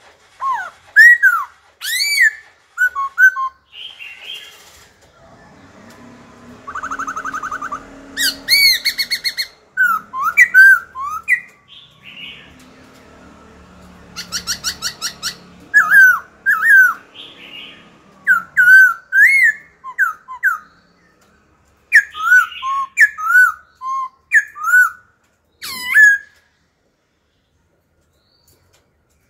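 Caged black-throated laughingthrush singing loud whistled phrases of slurred rising and falling notes, broken by fast rattling trills, changing phrases constantly. It falls silent a few seconds before the end.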